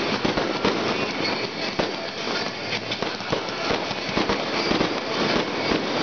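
Fireworks going off in a dense barrage: many sharp bangs and pops in quick, irregular succession, with no let-up.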